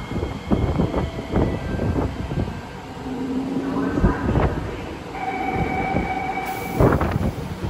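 Siemens C651 metro train standing at the platform with its doors open: irregular knocks and clatter, a brief low hum a little past three seconds in, and a steady two-note tone for about two seconds from five seconds in.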